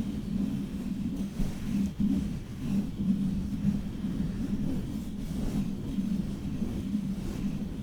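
Long fingernails scratching and rubbing directly on a microphone and its foam cover, a continuous low-pitched scratchy rustle with no pauses.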